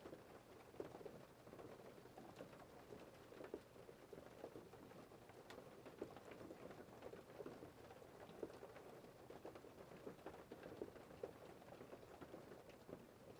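Faint rain pattering steadily, with many scattered individual drop ticks.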